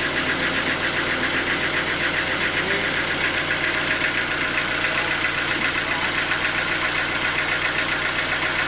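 Sawmill engine running steadily with an even mechanical drone that does not change in pitch or level.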